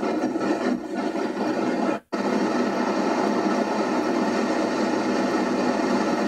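Steady road and engine noise inside the cabin of a moving car, broken by a sudden brief silence about two seconds in.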